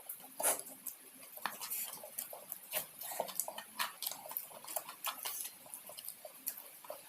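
A person chewing and eating fried fish with rice, close to the microphone: irregular mouth clicks and smacks, several a second.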